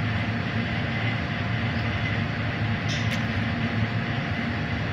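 Steady hum and rushing noise of commercial kitchen machinery, with a faint click about three seconds in.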